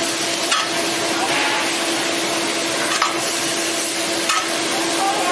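Ice cream cup filling machine running: a steady hiss over a constant hum, with three short clacks from its mechanism about half a second, three seconds and four seconds in.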